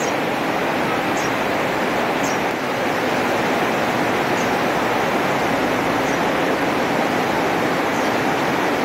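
Steady hiss of rain falling, with faint short high chirps about once a second.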